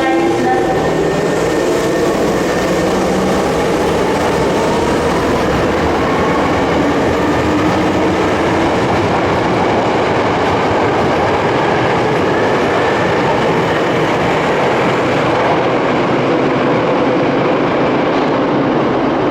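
Subway train running through an underground platform, loud and steady. The wheels rumble on the rails and faint motor tones rise in pitch as the train gets under way. The hiss thins out near the end.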